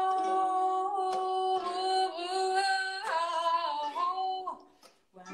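A woman singing long, held notes with no clear words. She moves to a higher note about three seconds in and stops about four and a half seconds in.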